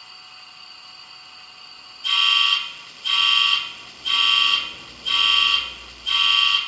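Bachmann Class 66 model locomotive's DCC sound decoder playing the start of its engine start-up sequence: five evenly spaced alarm beeps about a second apart, beginning about two seconds in, through the model's small on-board speaker.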